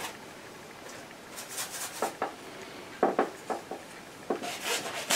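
Wide flat bristle brush stroking and dabbing oil paint onto a stretched canvas: a run of short scratchy swishes with a few light taps, in clusters about a second and a half in, around three seconds in and near the end.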